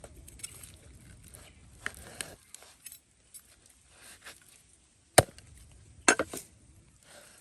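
A few sharp knocks or chops: one hard strike about five seconds in, then a quick cluster of two or three about a second later, with lighter clicks and taps before them.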